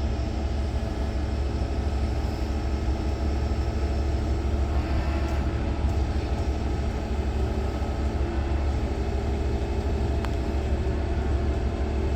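Heavy-duty tow truck's diesel engine running with a steady low drone, powering its winches at low speed during a lift.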